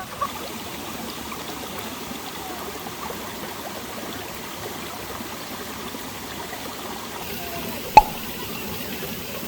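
Mountain stream water rushing and splashing steadily over rocks. One sharp knock about eight seconds in stands out as the loudest sound.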